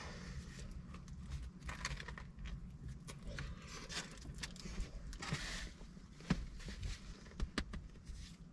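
Quiet chewing of a mouthful of chicken sandwich, with scattered soft clicks and brief rustling of a paper napkin and wrapper being handled.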